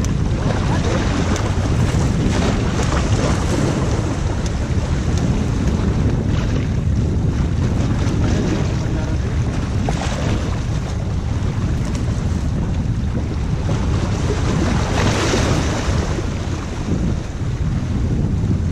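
Steady wind buffeting the microphone over sea waves washing against the rocks of a boulder breakwater.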